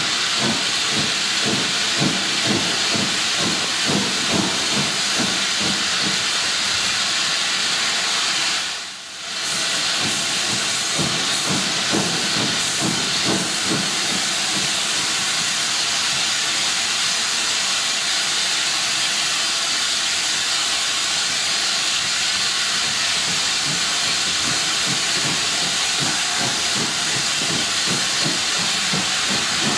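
Loud steady steam hiss from a US Army S160 steam locomotive on the move, heard from onboard the train, with a quick rhythmic pulsing underneath. The sound dips briefly about nine seconds in.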